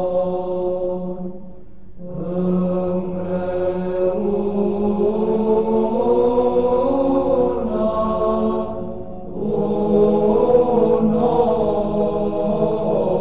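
Slow a cappella Orthodox church chant: voices holding long, sustained notes in phrases, with two short breaks between phrases.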